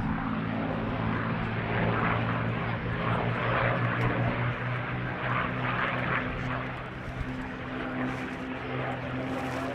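North American P-51 Mustang's Merlin V12 engine running as the fighter flies past, with a steady, even pitch, louder for a few seconds in the middle.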